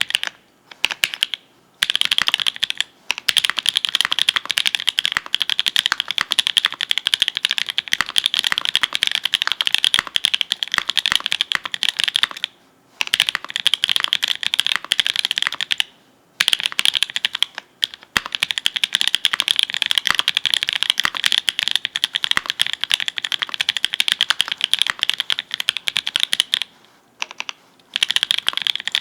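Steady fast typing on a custom mechanical keyboard: lubed linear switches built from Kailh Red stems in Everglide V2 nylon housings, on a GEONLAB F1-8K with an FR4 plate and GMK keycaps. The keys bottom out in a dense run of clicks that breaks off briefly a few times.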